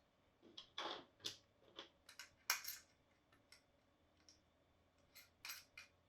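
Irregular small clicks and clinks of metal hardware being handled as a guitar-pedal circuit board, with its pots and jacks, is fitted into its enclosure and the nuts are put on hand tight. The loudest clink comes about two and a half seconds in.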